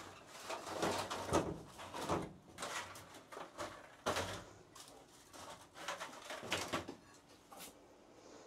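Stacked black plastic seedling trays and nested nursery pots being slid, lifted and set down on a wooden bench: irregular plastic rustling and clattering knocks that die away near the end.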